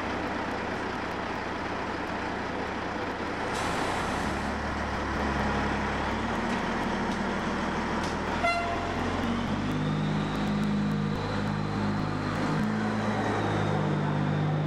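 Diesel engine of an FAUR Mk45 narrow-gauge diesel-hydraulic locomotive, re-engined with a Caterpillar C15, running and then revving up as the locomotive gets moving. A brief horn toot comes about halfway through, and a thin high whine joins in near the end.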